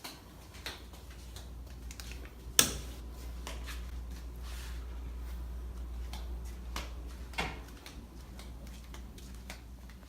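Scattered light knocks and clicks over a low steady hum, with one sharper knock about two and a half seconds in and a smaller one near the end.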